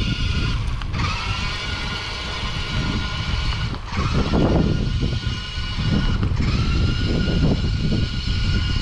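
Electric drive motors of a Ruko 1601AMP amphibious RC truck whining steadily as it drives through pool water. The whine drops out briefly three times and climbs back up each time. Heavy wind rumble on the microphone runs underneath.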